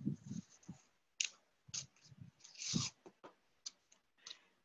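Scattered light clicks and rustles of hands handling a Lego-brick mold retaining wall and masking tape, with a longer rustle a little before three seconds in.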